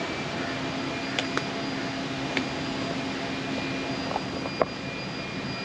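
Steady mechanical hum of an engine or fan, with several unchanging tones over a hiss. A few sharp clicks break through, the loudest one near the end.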